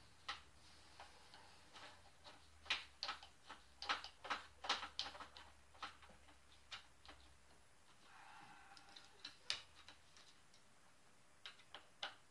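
Faint, irregular clicks and taps of a screwdriver and small metal parts as an angle grinder is screwed back together. The clicks come thickly for the first several seconds, then a few scattered ones near the end.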